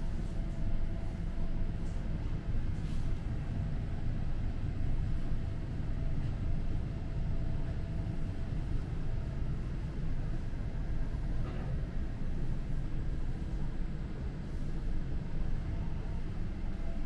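Steady low rumble of indoor background machinery, with a faint steady hum above it.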